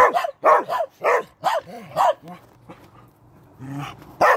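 A small dog barking repeatedly, short barks about two a second, then a brief pause and one more bark near the end.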